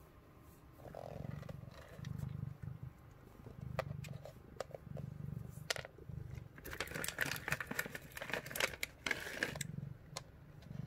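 Domestic cat purring in a soft, even pulse about once a second. From about seven seconds in, a spell of crunching and clicking as it chews a crunchy Temptations cat treat.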